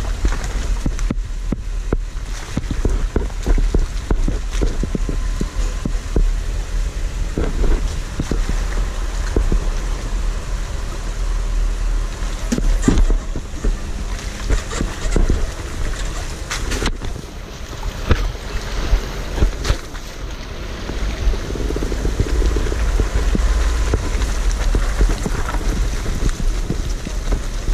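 Jeep crawling slowly along a rocky creek bed: a steady low engine and drivetrain rumble, with tyres knocking and crunching over rock ledges and gravel and churning through shallow water. Wind and rumble buffet the microphone on the outside of the vehicle.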